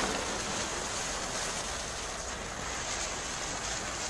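Small ring-shaped ground spinner fireworks burning on ice, giving a steady fizzing hiss as they spin and spray sparks.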